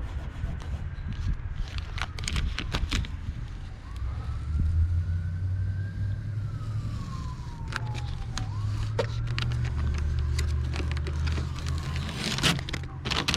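A distant siren wailing, its pitch slowly rising and falling every few seconds, over a steady low rumble. There are scattered clicks and taps, with a cluster near the end.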